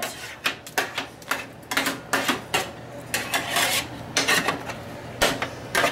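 A metal utensil clattering and scraping against a pan in an irregular run of sharp knocks and short scrapes, as burnt food is worked at in the dish.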